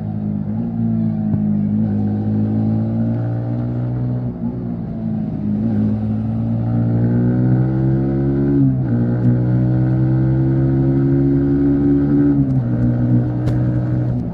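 Yamaha MT-15's 155 cc single-cylinder engine accelerating on the move, its pitch rising steadily and dropping sharply at two upshifts, about two-thirds of the way in and again near the end.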